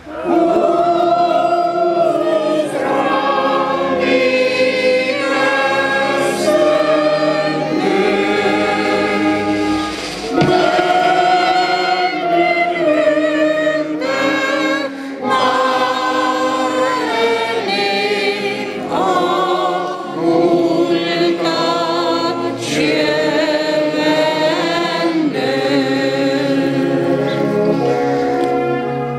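Many voices singing a slow song together in long held phrases, with brief breaths between them. The singing fades out near the end.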